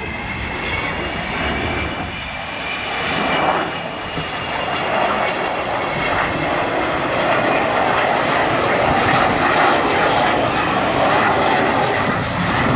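Avro Vulcan XH558's four Rolls-Royce Olympus turbojets running as the bomber flies past. A whine of several high tones fades after a few seconds into a loud rushing jet noise that keeps growing louder.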